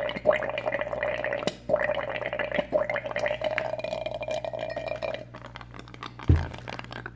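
Air from an aquarium pump bubbling steadily out of a tube submerged in a glass of liquid, over the pump's low, steady hum. The bubbling breaks off briefly once, stops about five seconds in, and a single thump follows near the end.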